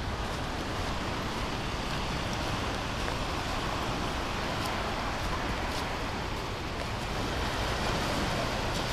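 Steady rushing noise of gentle ocean surf washing onto the beach, mixed with wind, even throughout and slightly louder near the end.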